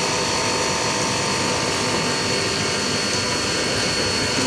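Haas CNC mill machining aluminum on a coarse roughing pass: a steady cutting and running noise with an unbroken high-pitched spindle whine.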